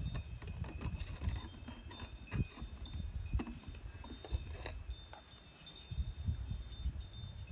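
Light metallic chiming: irregular clinks, each leaving ringing tones that hang on for a second or so. A low wind rumble on the microphone runs underneath.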